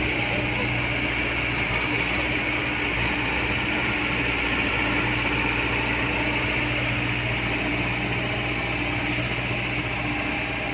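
Steady drone of heavy machinery, with a constant low hum and a hiss above it, unchanging throughout.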